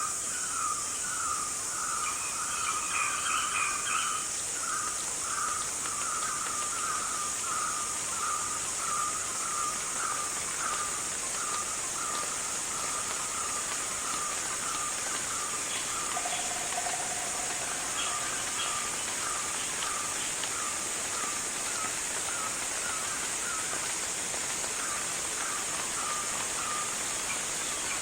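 Tropical rainforest ambience: a steady high-pitched insect drone under a short animal call repeated nearly twice a second, with scattered higher chirps from other animals.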